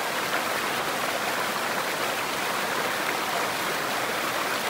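Steady rushing of a moorland stream tumbling over rocks and a small waterfall.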